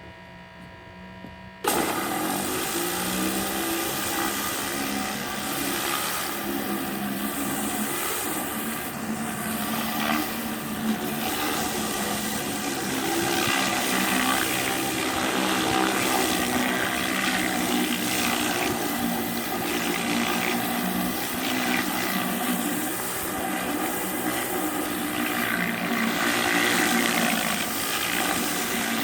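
A faint hum, then about two seconds in a 3000 PSI electric pressure washer starts and runs steadily, its water jet hissing through a rotary surface cleaner's spinning nozzles as it scrubs moss off a hard surface.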